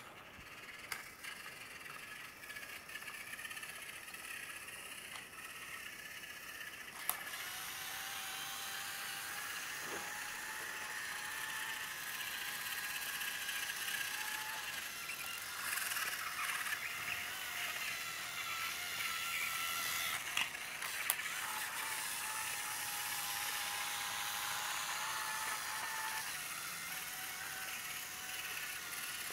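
Battery-powered toy train engines running on wooden track: a steady motor whine with wheels rattling along the rails and a few sharp clicks. It gets louder about seven seconds in.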